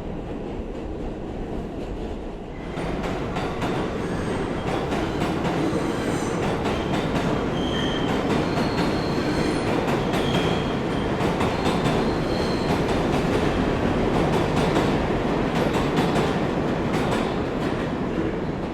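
New York City subway train running on rails, louder from about two and a half seconds in. Wheels clatter over the track with a few brief high-pitched wheel squeals in the middle.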